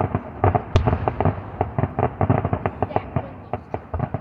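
Fireworks display: aerial shells bursting in a rapid run of cracks and pops, several a second, with one sharper, louder crack about a second in.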